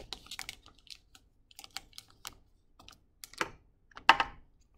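Sterile peel-pack of a 30 cc syringe being handled and peeled open: light crackling of the plastic-and-paper wrapper, with two louder rips of the peel seam about three and a half and four seconds in, the second the loudest.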